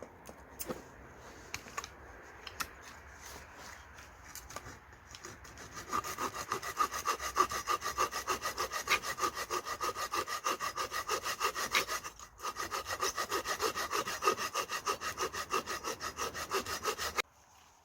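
Hand saw cutting firewood in fast back-and-forth strokes, about four to five a second, with one short pause midway, stopping abruptly near the end. Before the sawing starts, a few light knocks and handling sounds.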